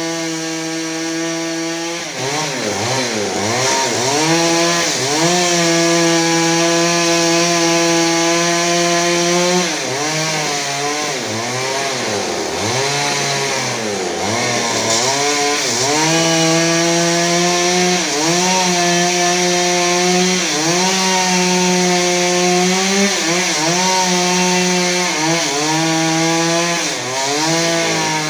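Stihl chainsaw running at high revs cutting into cedar wood. The engine note sags and recovers several times, about two seconds in, again around ten to fifteen seconds in, and near the end, as the chain loads up in the cut.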